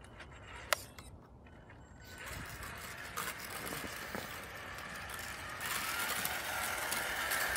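Traxxas E-Revo electric RC truck driving with a plow blade pushing and scraping through snow, its motor and drivetrain running and growing louder about two seconds in and again near the end, where a wavering whine comes through. A single sharp click just under a second in.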